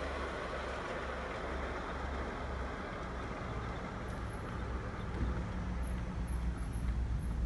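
A steady low rumble under an even noisy outdoor background, getting a little louder about five seconds in.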